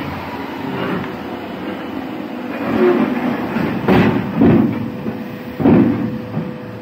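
Uneven mechanical rumble with several knocks and clanks, the sharpest about four seconds in.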